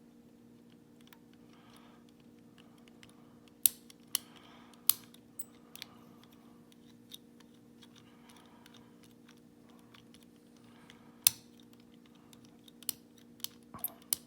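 Scattered sharp metallic clicks and faint scraping from a lever-lock pick and tension tool being worked inside the keyway of a Legge five-lever padlock, with a few louder clicks and a quick cluster of them near the end, over a faint steady hum.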